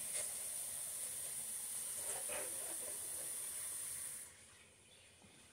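Pot of pinto beans and pig's feet boiling on the stove, a steady hiss that drops off abruptly about four seconds in.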